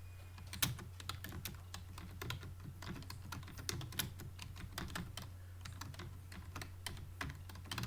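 Computer keyboard being typed on quickly and continuously, a dense, irregular run of key clicks several to the second, over a steady low hum.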